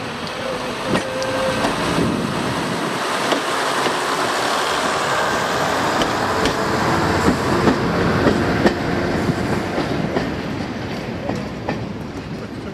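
BR Class 121 'Bubble Car' single-car diesel railcar departing and passing close by: its diesel engines running under power, with wheels clicking over the rail joints. The sound fades as it pulls away near the end.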